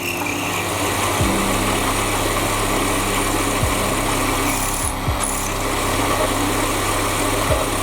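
A power tool running steadily, with a constant hum and a dense noisy whirr, and a few brief low thumps.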